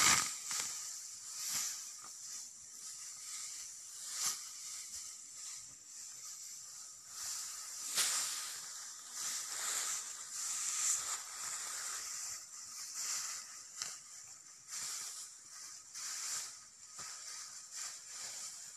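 Dry cogon grass rustling and crackling in uneven swishes as it is pushed through, trampled and pulled by hand, over a faint steady high hiss.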